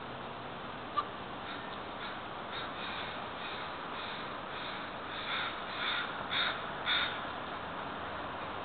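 Crows cawing from a power line: a run of short caws that grows louder, ending in four strong caws about half a second apart, over a steady background hiss.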